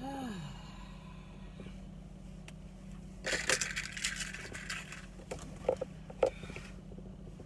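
Rustling and scraping as things are handled inside a car cabin, loudest for a couple of seconds midway, followed by a few sharp clicks and knocks. A steady low hum runs underneath, and there is a short falling hum of the voice at the very start.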